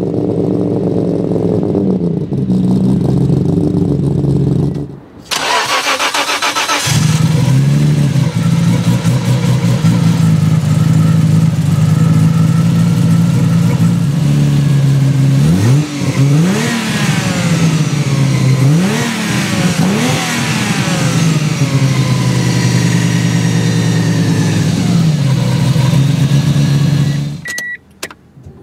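Nissan Skyline GT-R R33's RB26DETT inline-six idling steadily, with a brief break about five seconds in. In the second half the engine is blipped several times, the pitch rising quickly and falling back to idle, before the sound cuts off sharply near the end.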